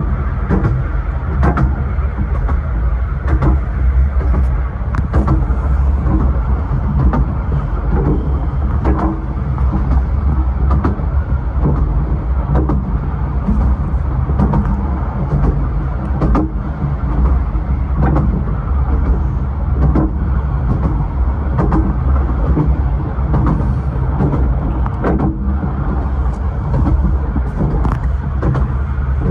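Running noise of a 15-inch gauge railway carriage in motion, heard from its rear compartment: a loud, steady low rumble with frequent clicks and knocks from the wheels and running gear on the track.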